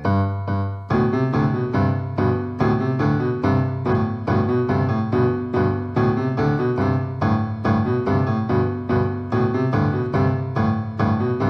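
Piano music playing an even, steady run of notes over a held low bass.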